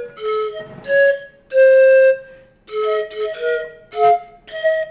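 Background music: a flute-like melody played in short phrases of a few notes, with brief pauses between them.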